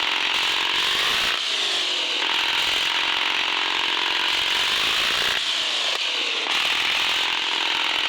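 Electric motor and gearbox of an RC 4x4 crawler whining under load, the pitch rising and falling as the throttle changes.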